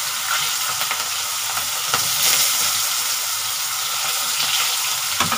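Hot oil sizzling steadily in a kadai with cumin seeds, as chopped garlic, onion and bay leaves are added for the tempering, with a few light clicks.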